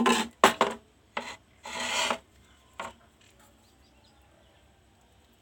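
Several short scraping, rubbing noises in the first two seconds or so, then a small click, then quiet: hands handling parts during an induction cooktop repair.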